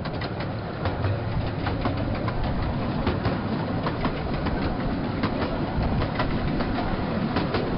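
Miniature railway train running along the track, heard from a coach on board: a steady rumble with the wheels clicking over rail joints.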